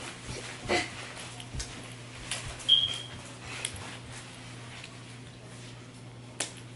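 White plastic clothes hangers clicking and khaki uniform clothes rustling as the hangers are pulled out of them, a handful of separate clicks, with one short high squeak a little before the middle that is the loudest sound. A low steady hum runs underneath.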